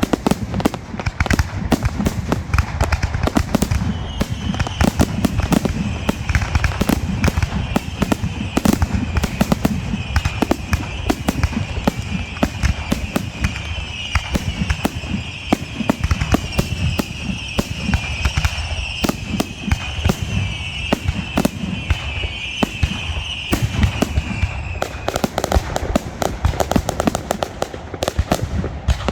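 A closing fireworks display firing densely, with shell bursts and rapid bangs following close on each other. A continuous high hiss sits over the bangs from a few seconds in until a few seconds before the end.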